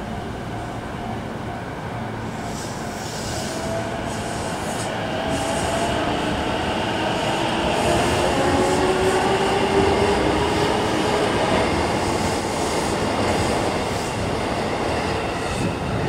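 JR Nambu Line electric trains running through a level crossing, swelling to a peak about halfway through, with a whine rising in pitch as they pass, over the crossing's electronic warning alarm ringing in a steady repeating beat.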